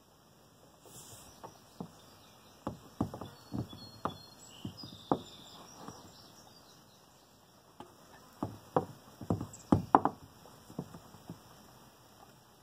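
Scattered, irregular clicks, taps and knocks of tools and parts being handled: a run of light knocks in the first half, a short pause, then a louder cluster of sharper knocks.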